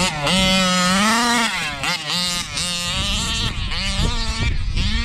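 Large-scale gas RC buggy's small two-stroke engine revving hard in a long rising pull, then blipped on and off in a string of short throttle surges.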